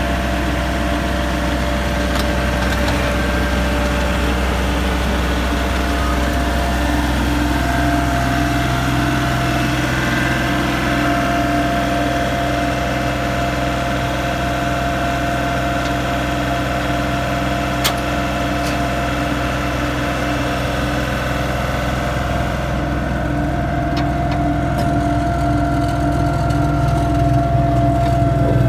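Wood chipper's engine running steadily, its tone shifting slightly about seven seconds in, with a single sharp click near the eighteen-second mark.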